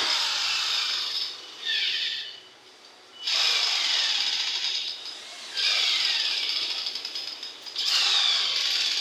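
Cordless electric rivet gun setting blind rivets in aluminum panel, five short runs in a row. The motor's pitch falls during each run as it pulls the mandrel, with brief pauses between rivets.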